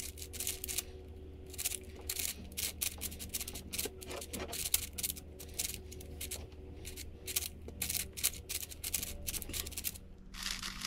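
MoYu 7x7 speed cube turned fast by hand: a rapid, irregular run of plastic clicks and clacks as the layers snap round, with a brief pause about a second in. A steady low hum sits underneath.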